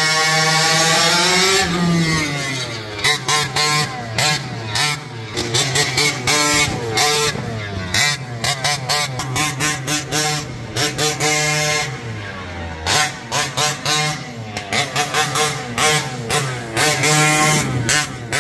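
Two-stroke petrol engine of a giant-scale RC monster truck, revving up and down over and over under hard driving. Its pitch rises and falls as the throttle is opened and snapped shut, with many brief drops in the sound.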